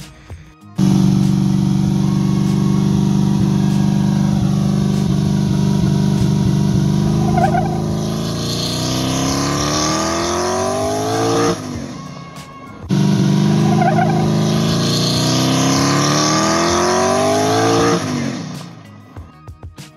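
Turbocharged 4.8-litre V8 drag car held on the trans brake at its 3000 rpm launch rev limiter, a steady drone, then let go: the engine pitch climbs steadily as the car pulls away spinning its tires, and cuts off suddenly. The same launch plays again about a second later.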